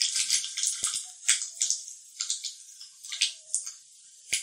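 Hot oil in a small tempering ladle sizzling with mustard seeds and cumin, the seeds crackling and popping irregularly: a tadka frying. The crackles are dense at first and thin out, with one sharp pop near the end.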